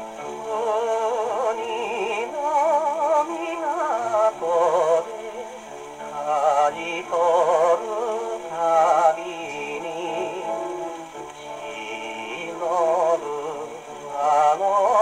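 A 1950 78 rpm shellac record played on a wind-up acoustic portable gramophone with a soft-tone steel needle. A male singer with heavy vibrato sings over band accompaniment, and the sound is thin with little bass.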